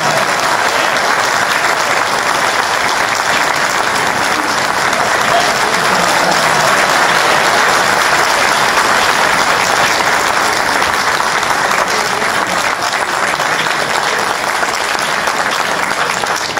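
Audience applauding: a sustained round of many people clapping that keeps up steadily throughout.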